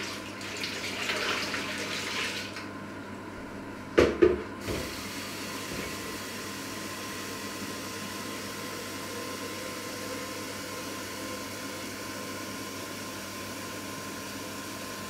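Water poured from a plastic jug into a stainless steel stockpot for about two seconds, then two sharp knocks about four seconds in. After that a kitchen tap runs steadily into the sink.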